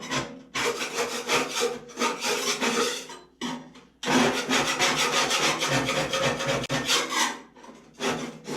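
Rough, rasping scraping on metal in three long bouts, scrubbing at surface rust on a go-kart's steel frame to see how bad the rust is.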